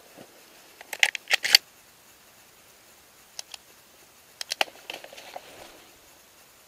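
A quick series of sharp clicks and knocks about a second in, and another shorter cluster a little past the middle, from handling an over-and-under shotgun in a hide, with faint rustling between them.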